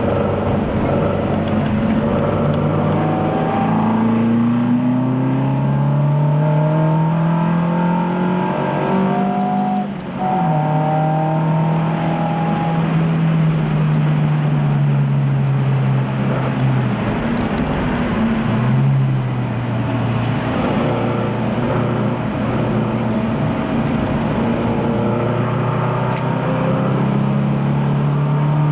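Alfa Romeo Giulia race car's twin-cam four-cylinder engine heard from on board under hard acceleration: revs climb, drop sharply at a gearshift about ten seconds in, hold high, then dip and pick up again around two-thirds of the way through as the car works through the gears.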